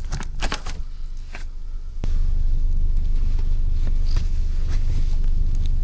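A few short rustles and clicks of handling, then, about two seconds in, a steady low rumble of wind buffeting the microphone sets in.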